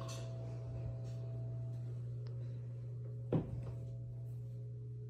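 Steady low hum of room tone, with one sharp knock a little over three seconds in.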